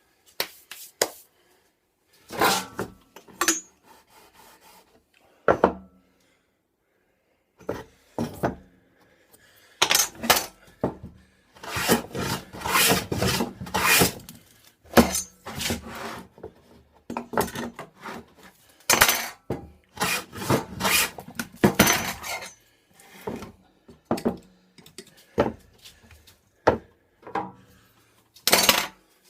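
A hand tool working wood: irregular strokes of rubbing and scraping, in short clusters with pauses between them, busiest in the middle.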